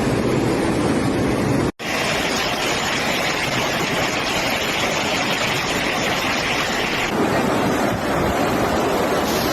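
Steady rushing water noise in footage of flooding and heavy rain. It cuts out for an instant about two seconds in, then returns with a brighter hiss that softens about seven seconds in.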